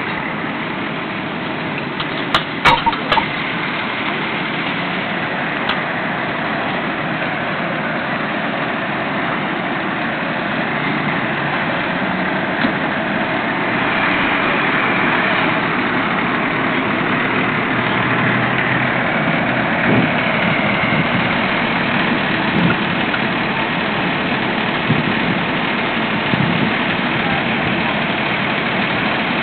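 Fire engine's engine idling steadily, a continuous mechanical rumble that grows somewhat louder about halfway through. A few sharp clicks about two to three seconds in.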